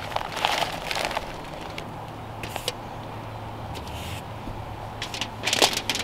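Plastic bag crinkling and rustling in bursts while brown sugar is shaken out of it, densest in the first second and again near the end, over a faint low steady hum.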